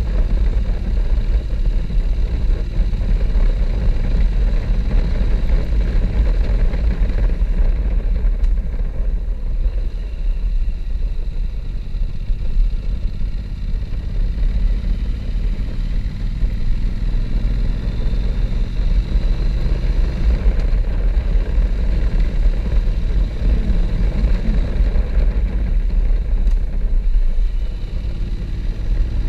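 Wind rumbling on the microphone of a motorcycle-mounted camera while riding, with a Honda NC-series parallel-twin engine running steadily underneath.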